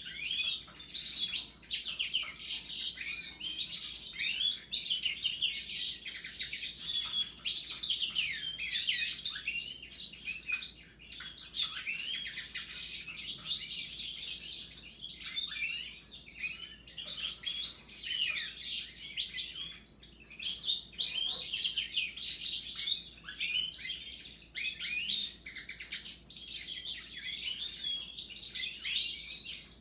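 Caged goldfinches (Siberian, eumo and parva) and Raza Española canaries singing together: a dense, continuous mix of quick chirps, trills and gliding notes, with two brief lulls about a third and two-thirds of the way through.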